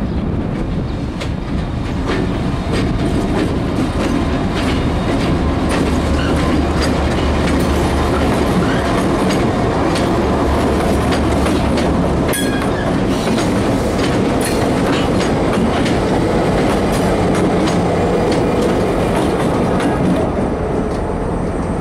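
Norfolk Southern diesel locomotives rolling past at close range: engines running with a steady low hum, and wheels clicking over rail joints.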